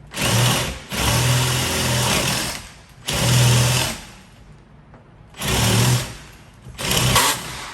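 Power drill running in five short bursts with brief pauses between them, the start-stop pattern of work on a door or frame.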